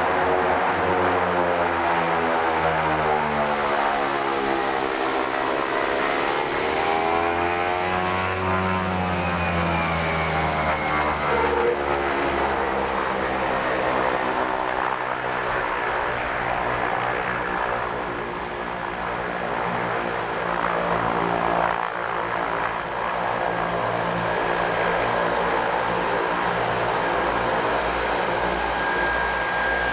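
Twin Otter turboprop plane, its two Pratt & Whitney PT6A engines and propellers running loudly and steadily, with the sound sweeping up and back down about five to ten seconds in as the plane moves.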